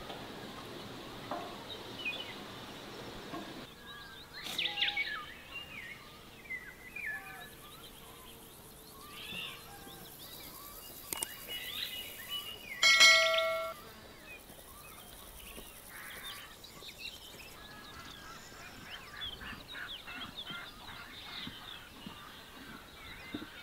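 Small birds chirping and singing, over a steady hiss for the first few seconds. About halfway through comes one loud call with a clear pitch, lasting about a second, the loudest sound.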